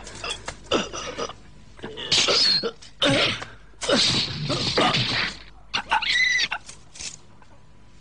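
A run of short, shrill cries and grunts in separate bursts, with a higher, rising cry about six seconds in.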